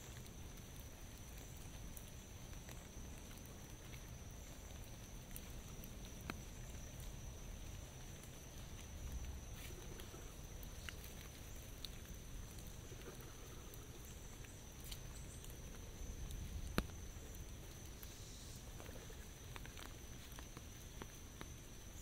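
Sparse, irregular drops of rain tapping on an umbrella, over a steady high-pitched drone and a low rumble.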